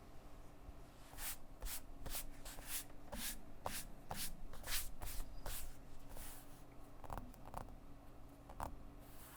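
Typing on an Anne Pro 2 mechanical keyboard with stock Kailh Box Red linear switches: an uneven run of keystroke clacks, quicker in the first half and thinning out later.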